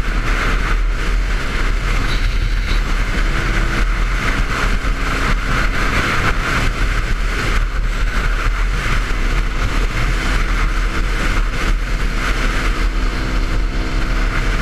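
Yamaha WR250X's 250 cc single-cylinder engine, fitted with an FMF Q4 exhaust, running steadily at freeway speed, mixed with wind rushing over the helmet-mounted microphone.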